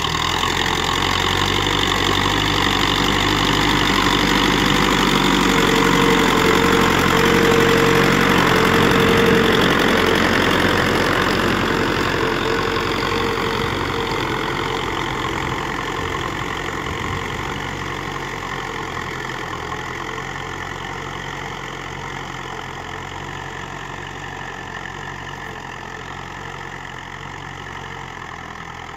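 1998 Massey Ferguson tractor's diesel engine running steadily while pulling a tine cultivator through the soil. It is loudest about a third of the way in, then fades gradually as the tractor moves away.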